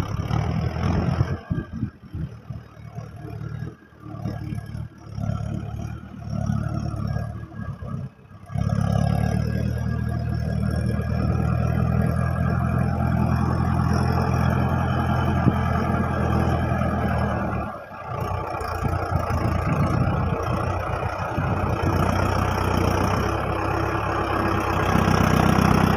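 Mahindra Arjun 555 DI tractor's four-cylinder diesel engine running as it tows a loaded trailer. The sound is uneven and choppy at first, then settles into a steady engine note about a third of the way in. It dips briefly about two-thirds of the way through and grows a little louder near the end.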